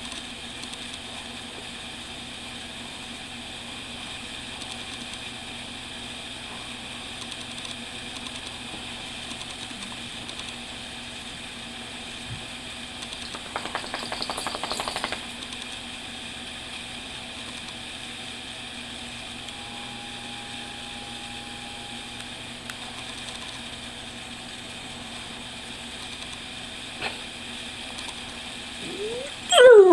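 Steady machine hum with a few fixed tones in it. About halfway through comes a rapid rattling buzz lasting a second and a half. At the very end a dog begins a rising whine.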